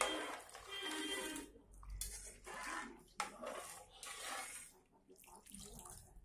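Water poured from a tumbler into an aluminium pressure cooker in about four separate pours, with a sharp knock about three seconds in.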